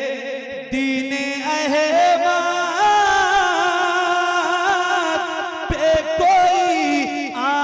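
A man's voice singing a naat into a microphone, drawing out long, ornamented notes whose pitch wavers and bends.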